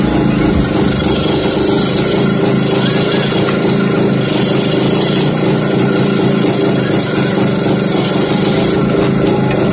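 Old Yezdi motorcycle's single-cylinder two-stroke engine running at a steady idle.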